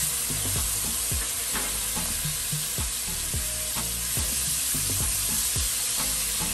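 Seasoned pork rib pieces frying in a hot cast iron Dutch oven, a steady sizzle as the meat browns. A low, regular beat runs underneath.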